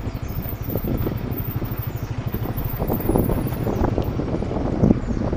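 A vehicle engine running as it drives along a rough dirt track, with rapid low pulsing and wind buffeting the microphone.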